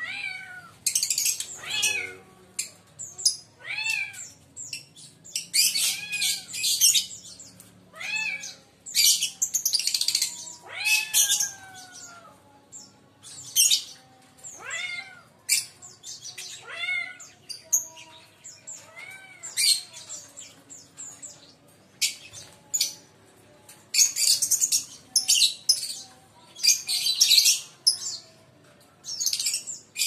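Caged lovebirds calling: short arched shrieks repeated every second or two, mixed with bursts of harsh, high-pitched chattering.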